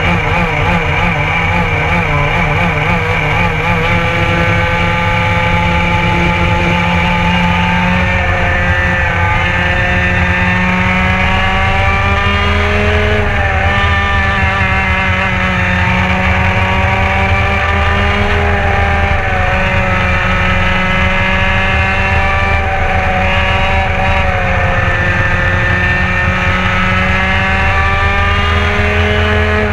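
Racing go-kart engine heard from on board the kart, running low and uneven at first, then revving up as the race gets going from about four seconds in. It keeps rising and falling in pitch with each straight and corner.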